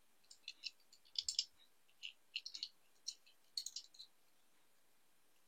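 Light, irregular clicks and taps of a small die-cast toy car with freshly swapped wheels being handled, stopping about four seconds in.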